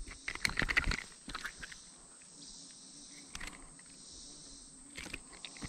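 Insects chirring steadily in a high, even hiss. A quick cluster of sharp clicks and rattles comes in the first second, and a few single clicks follow later.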